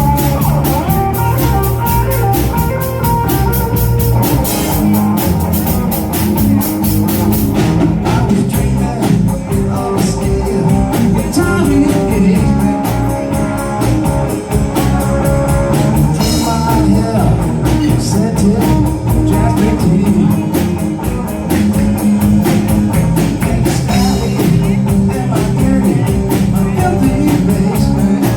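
Live blues-rock band playing an instrumental stretch: electric guitar over bass and drum kit.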